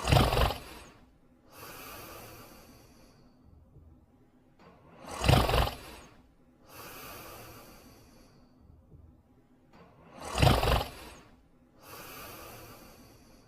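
Cartoon dog character snoring in sleep: three loud, rasping snore inhalations about five seconds apart, each followed by a softer, hissing breath out.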